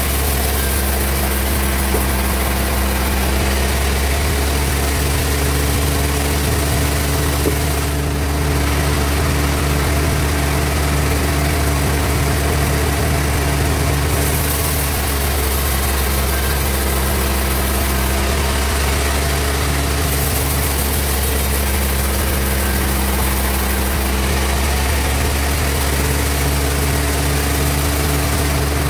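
Band sawmill machine running steadily, a constant low machine hum with a few stretches where a higher hiss comes and goes.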